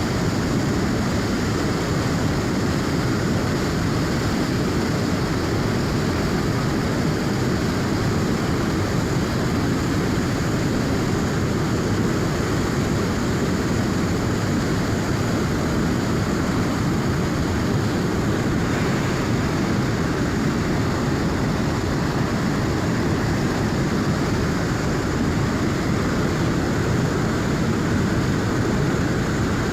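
A river running at high flow, rushing steadily: an even, deep noise of turbulent water with no breaks.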